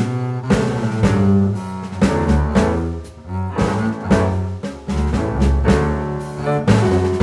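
Background music with a strong low bass line and a steady beat.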